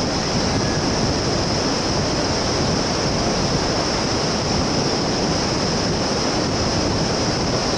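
Steady rushing roar of a river's rapids far below in the gorge, even and unbroken, with a steady high-pitched whine sitting above it.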